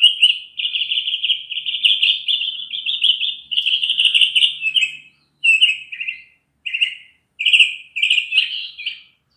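A small songbird singing: high, rapid trilled warbling, one long unbroken run for about five seconds, then several shorter phrases separated by brief pauses.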